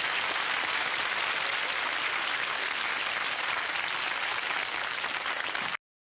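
Studio audience applauding steadily, then cutting off abruptly about a second before the end.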